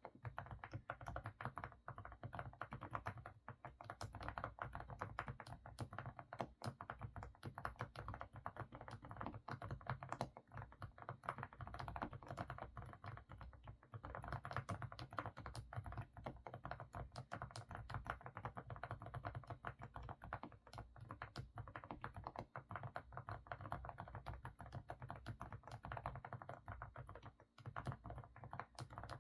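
Continuous fast typing on an AK68 mechanical keyboard with semi-silent Didimdol switches: a dense stream of full, muffled keystrokes with a low thock under each press.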